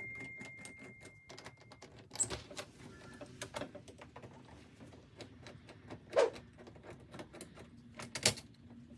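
Screws being taken out of an old door deadbolt: irregular small metallic clicks and ticks of the screwdriver and lock hardware, with a few louder knocks. A high metallic ring fades away over the first two seconds.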